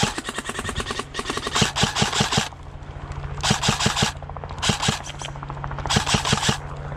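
Airsoft rifle firing in short full-auto bursts: five quick strings of rapid clicking shots, each lasting about half a second to a second, with brief pauses between.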